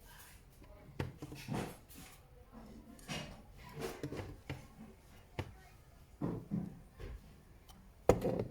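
Scattered light knocks and clicks of objects being handled on a work surface, with one sharp, louder knock near the end.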